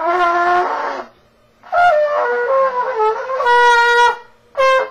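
Trumpet played by a novice: wavering notes that slide in pitch, in three phrases, a short first one, a long middle one and a brief last blast.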